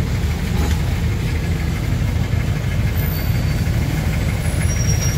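Jeepney engine running with a steady low rumble, heard from inside the open-sided passenger cabin.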